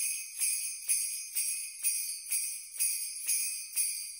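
Sleigh bells shaken in a steady rhythm, about two shakes a second.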